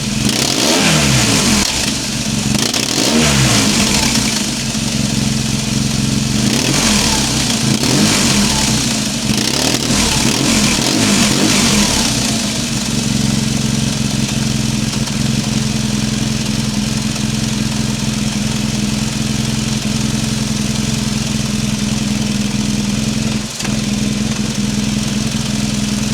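BMW R1200 GS Adventure boxer twin running through a GRmoto slip-on exhaust with the baffle in, blipped several times in the first dozen seconds and then settling to a steady idle. It sounds a bit louder than stock, with a few little pops on the overrun.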